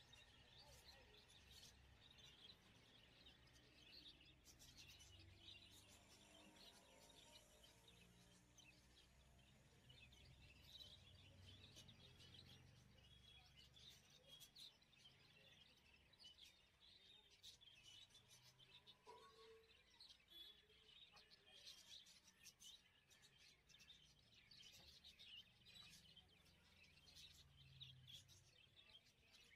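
Near silence: faint background room tone with a low hum and scattered faint high-pitched ticks and chirps.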